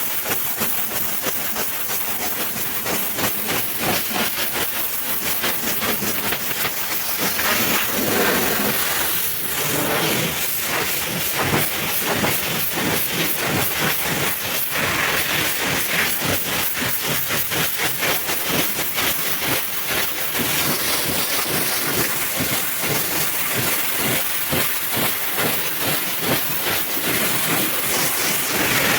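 High-pressure washer jet spraying water: a steady loud hiss with a rapid pulsing flutter.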